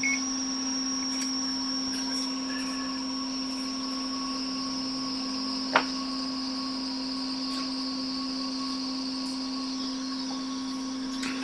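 Hot-air rework station blower running steadily with a constant hum, as a part is reflowed onto a MacBook Air logic board; a single sharp click a little past halfway.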